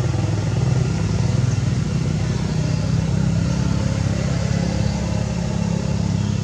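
An engine running steadily, a low even hum that does not change.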